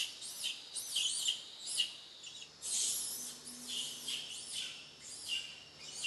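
A series of short, high-pitched chirping calls from an animal, about two a second, each rising and falling in pitch, with a longer, harsher call about three seconds in.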